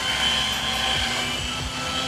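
Align T-REX 700 radio-controlled helicopter in flight, its rotor and drivetrain giving a steady high whine, with a few short low thumps.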